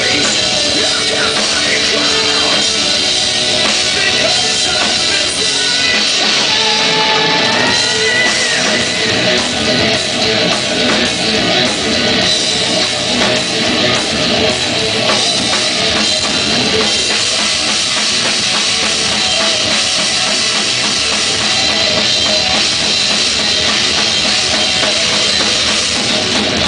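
Rock band playing live: drums and guitar, loud and steady, with no singing.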